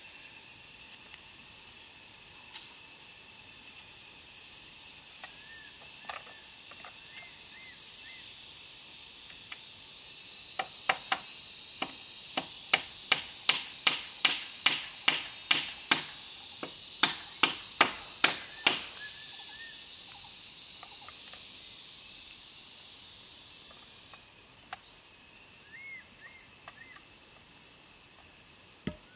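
A run of sharp, loud blows on the wooden pole frame, about two a second for some eight seconds, beginning about a third of the way in: a pole joint being hammered tight. Behind it, a steady high insect hiss and a few short bird chirps.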